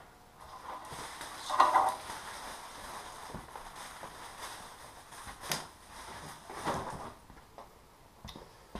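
Shuffling and handling noise with a few light knocks and clicks, loudest about two seconds in.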